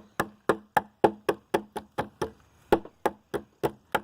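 Rapid, evenly spaced hammer blows striking a fidget spinner lying on a wooden plank, about three to four knocks a second, the wood chipping under the strikes.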